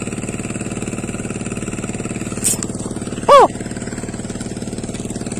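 A small engine running steadily with an even pulse. Just past the middle comes a short, loud tone that falls sharply in pitch, just after a brief hiss.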